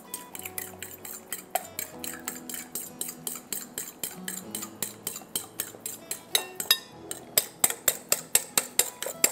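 Eggs being beaten in a glass bowl with a metal utensil: rapid, regular clinks against the glass, about four to five a second, louder in the last few seconds.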